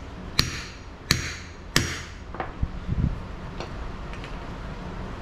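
Hammer blows on a socket against a driveshaft's U-joint yoke, driving a bearing cap into place. There are three hard, ringing metal-on-metal strikes about two-thirds of a second apart, then a few lighter taps.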